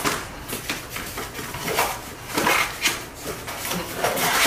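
Stiff cardboard pieces being handled, sliding and scraping against one another as they are lifted from a stack, in a series of swishes and scrapes that is loudest about two and a half seconds in.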